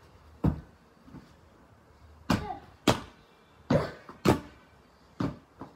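Large clear inflatable ball being kicked, hit and bouncing: a series of sharp thuds, several coming in pairs about half a second apart.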